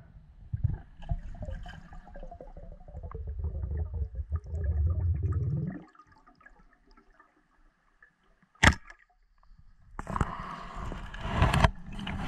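Muffled water noise picked up by an underwater camera: a low rumbling dense with bubbling ticks for about six seconds, then near quiet broken by one sharp click. In the last two seconds the water noise becomes louder and hissier.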